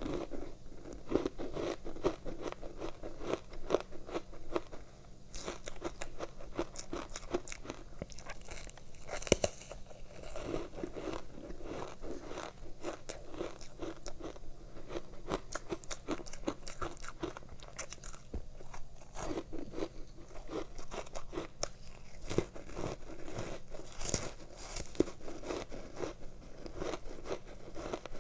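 Close-miked biting and chewing of soft, powdery matcha-coated ice: continuous crunching and fine crackling, with one louder crunch about nine seconds in.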